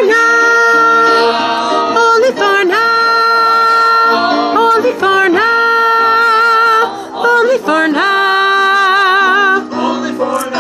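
Cast singing a show tune in long held notes, phrase after phrase, the last held note wavering with vibrato.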